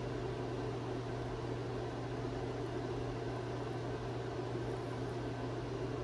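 Steady low hum over an even hiss: constant room background noise with no distinct events.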